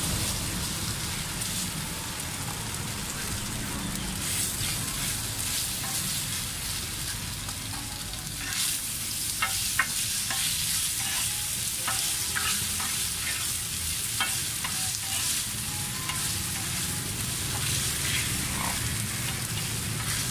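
Bột chiên (rice-flour cake pieces) sizzling in hot oil on a pan, stirred with a spatula. Several short clinks of the spatula against the pan come from a little under halfway through.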